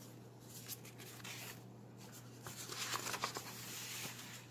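Faint rustling and soft handling noises of a paper picture book's cover being opened and its pages turned, loudest about three seconds in.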